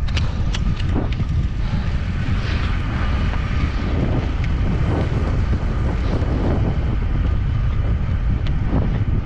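Wind buffeting the microphone of a roller skier speeding along at 30 to 40 km/h, a loud steady rumble. Under it the rolling hiss of polyurethane roller-ski wheels on asphalt, with a few sharp clicks.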